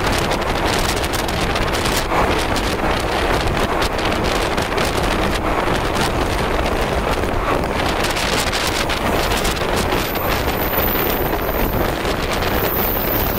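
JNR 185 series electric train running at speed: a steady rushing noise with many small clicks and knocks.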